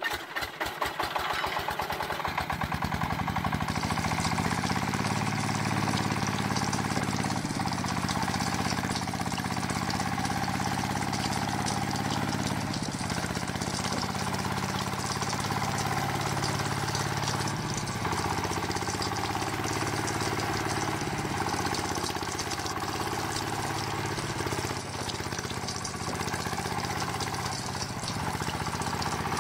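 Small diesel engine of a miniature water-pump model starting: its chugs quicken over the first few seconds and then settle into steady running as it drives the pump.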